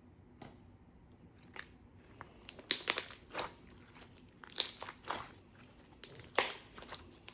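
Slime being squished and pressed by hand, giving clusters of sharp crackling pops and clicks that start about two and a half seconds in.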